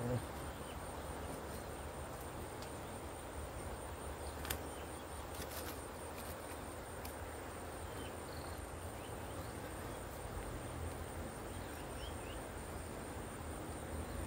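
Riverbank ambience: a steady high insect trill over a low background rumble, with a few faint clicks about four and a half and five and a half seconds in.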